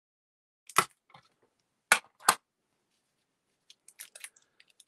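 Cardstock and tape being handled on a glass craft mat as ribbon is taped to the back of a card panel: three short, sharp crackles in the first half, then lighter scattered rustles and taps near the end.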